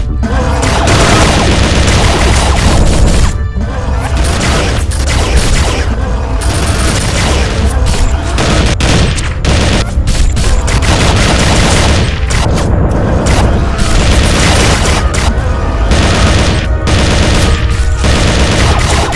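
Loud action-film soundtrack: driving music with a heavy, steady bass and rapid sharp hits running throughout.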